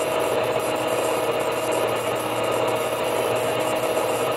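Brake disc and drum lathe running steadily as it turns a brake drum against its cutting tool, a constant machine hum with no change in speed.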